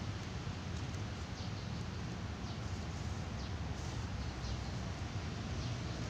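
Steady low outdoor rumble with faint, brief high chirps of small birds scattered through it.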